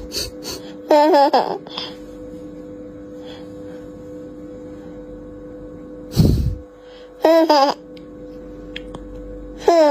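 A baby's short laughing squeals, three times, over a steady low hum, with a loud thump about six seconds in.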